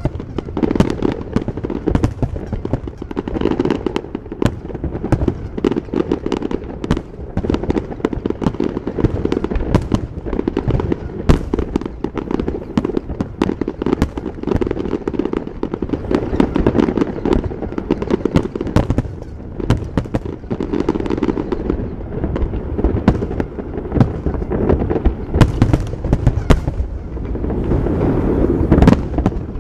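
Aerial fireworks display: a dense barrage of shell bursts, booms and crackles, many close together and overlapping, over a continuous low rumble.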